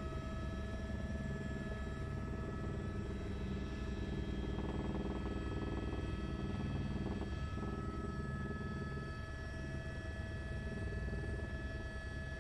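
Helicopter cabin noise in flight: a steady high turbine whine over a constant low rotor drone.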